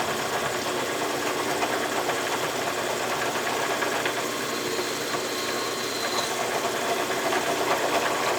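Milling machine running steadily while a long drill bit bores through a small metal nut to make the tap hole for a 1/4-28 left-hand thread. A faint high whine comes in for about two seconds near the middle.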